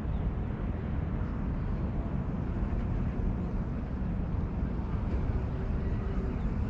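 Steady low rumble of road traffic from a nearby road, with a faint humming tone from a passing vehicle about five seconds in.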